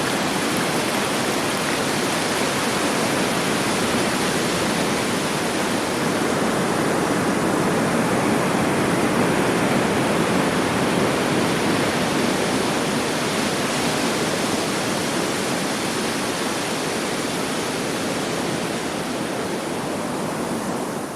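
Sea surf rushing as one steady, continuous wash, with no separate wave breaks standing out. It swells a little midway and begins to fade right at the end.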